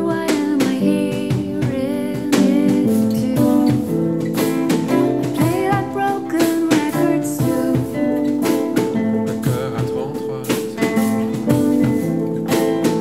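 An acoustic pop band playing an instrumental passage between sung lines, with strummed guitar and other instruments playing steady chords and a melody.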